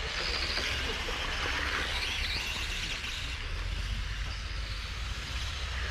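Electric Tamiya M-chassis RC cars running on an asphalt track, their motor and gear whine rising and falling as they pass, over tyre hiss and a steady low rumble.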